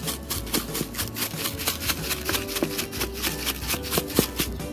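Steak spice being shaken from a shaker onto a raw steak on a plate: a quick, even run of rattling shakes, several a second.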